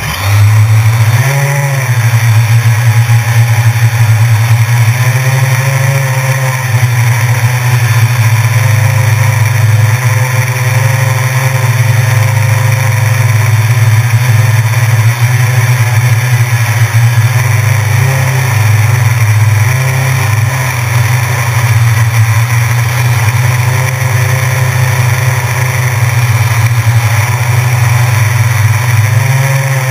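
Small drone's electric motors and propellers buzzing loudly and steadily as it flies, the pitch shifting up and down now and then with throttle changes, heard from the camera carried on board.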